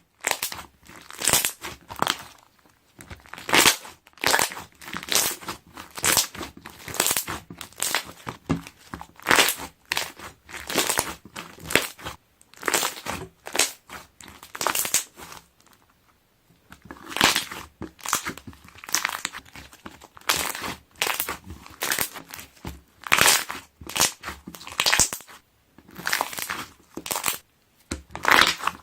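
Balloon-texture slime being pressed and squeezed by hand, its trapped air bubbles popping and crackling in repeated bursts, with a short pause about halfway through.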